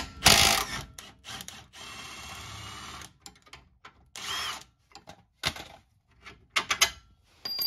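Wrenches working on a car's front suspension bolts: sharp metal clanks, a steady whirring stretch about two seconds in, then scattered clicks and scrapes.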